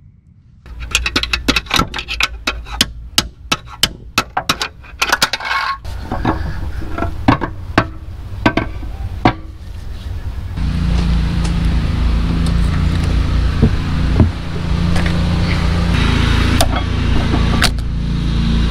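Steel tools and parts clinking and knocking against a tractor transmission case during disassembly, with a quick run of sharp clinks in the first few seconds. About ten seconds in, a steady low hum sets in under occasional knocks.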